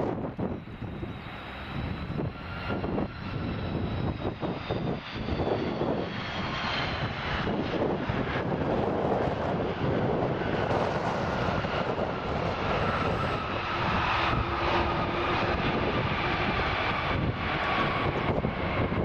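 Airbus A330 jet engines passing on landing approach, a loud steady rush with a whine that slides slowly down in pitch as the airliner goes by. Gusts of wind buffet the microphone throughout.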